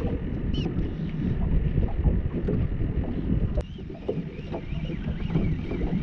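Wind rumbling over the microphone in uneven gusts, with one sharp click a little over halfway through.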